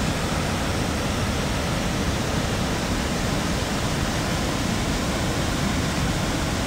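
Steady rushing of a flood-swollen river pouring over a mill dam, mixed with heavy rain falling. The river is running high and brown with floodwater, pouring over the dam harder than it normally does.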